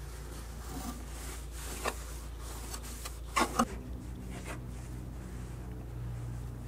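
A microfibre towel rubbing and wiping over bare aluminium aircraft skin wet with a degreaser soap solution, in short strokes, with two brief louder scuffs about three and a half seconds in. A steady low hum runs underneath.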